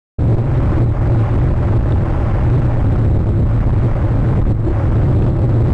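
Strong wind buffeting the nest camera's microphone: a loud, steady low rumble with a hiss above it.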